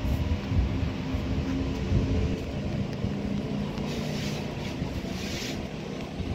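A steady low mechanical hum and rumble with a held pitched drone, with a brief scratchy hiss about four to five and a half seconds in.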